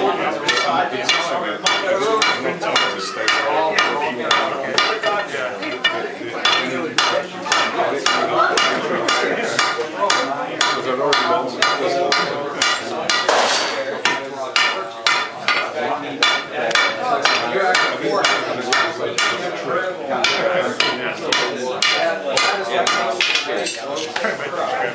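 Blacksmith's hammer striking metal on an anvil in a quick, steady run of blows, about three a second, with a short hiss about halfway through.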